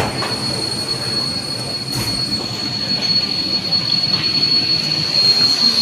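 Downtown Line C951 train giving a steady high-pitched squeal over the rumble of the train, growing louder toward the end.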